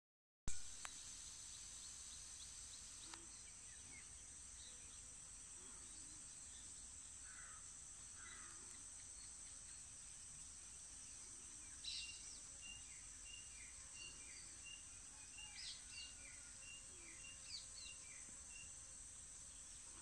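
Faint, steady high-pitched trill of insects, with small birds chirping over it. A quick run of repeated short call notes comes from about twelve to eighteen seconds in. A single sharp click sounds just after the start.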